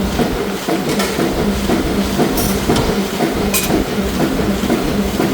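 Forging-shop machinery running with a steady, dense rumble and a low hum, broken by three sharp metallic clinks.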